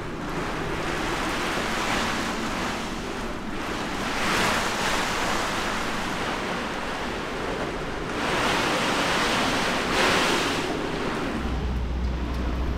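Hurricane wind and driving rain heard from inside a sailboat's cabin beneath a deck hatch: a steady rushing noise that swells in gusts several times. A low rumble sets in near the end.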